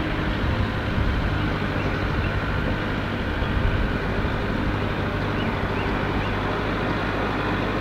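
Kubota MX5400 tractor's four-cylinder diesel engine running steadily as it pulls a land plane along a dirt and gravel driveway.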